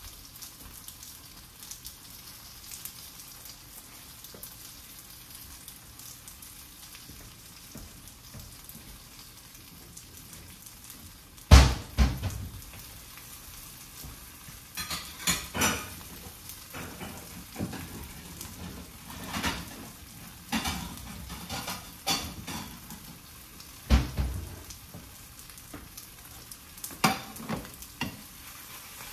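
A rice-paper and egg wrap sizzles faintly and steadily in a nonstick frying pan on the stove's residual heat, the burner just switched off. Several sudden knocks and clatters cut through it, the loudest a little before halfway.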